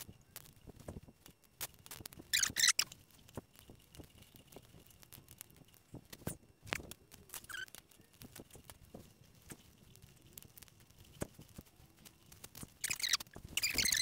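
Hands working a car wiring loom in plastic split conduit: scattered light clicks and knocks, with two brief hissy rustles, one about two seconds in and one near the end.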